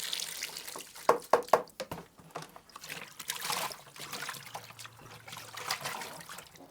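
Water running and splashing as something is given a quick rinse, with three sharp knocks just over a second in.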